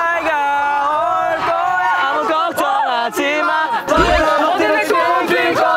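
Young men singing a Korean pop song at full voice in long held notes, with other voices whooping and shouting over it, several voices overlapping. A short low thump about four seconds in.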